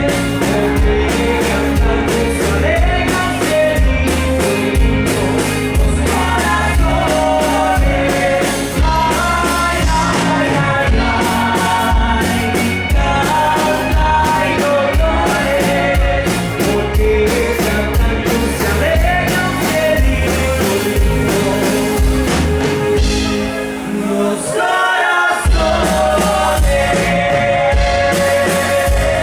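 Live rock band with drums and a lead singer playing a song, the bass and drums dropping out briefly about three-quarters of the way through before coming back in.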